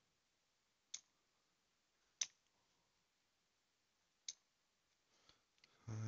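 Three short, light clicks, a second or two apart: small pin-tumbler lock pins from a gutted Abus Rock 83/55 padlock core being set down one by one, with a little faint handling noise near the end.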